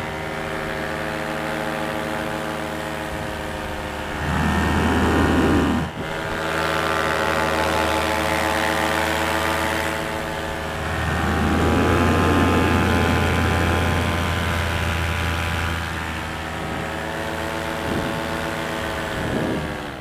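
Paramotor engine and propeller running at a steady pitch in flight. Wind rushing over the microphone swells up about four seconds in and again from about eleven seconds in.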